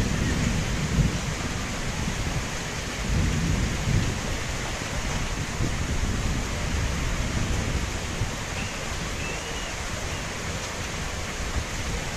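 Steady heavy rain during a tropical depression, with low rumbles in roughly the first four seconds.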